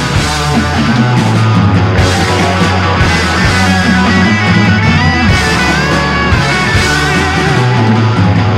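Rock music with electric guitar and a steady bass line.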